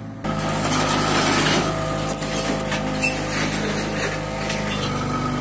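Mini excavator's diesel engine running steadily, cutting in abruptly about a quarter second in, with some clatter and rubbing over it.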